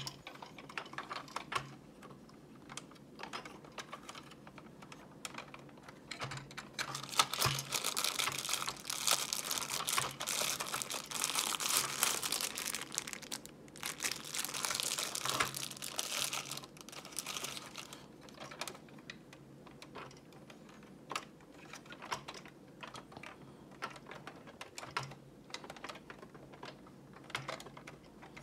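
Hard plastic toy parts being handled, giving scattered clicks and taps. For about ten seconds in the middle, a clear plastic bag of shape pieces crinkles more loudly.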